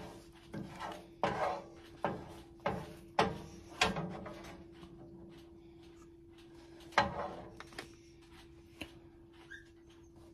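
Kitchen handling sounds: about half a dozen sharp knocks and clatters in the first four seconds and one more about seven seconds in. A steady low hum runs underneath.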